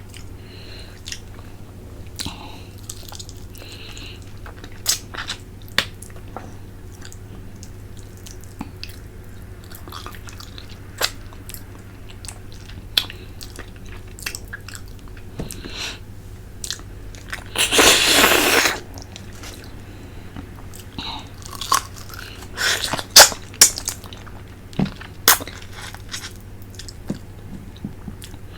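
Close-miked eating of a fish head from tinola: wet chewing, lip smacks and sucking at the bones. One loud slurp lasts about a second, a little past the middle, and more short slurps come near the end.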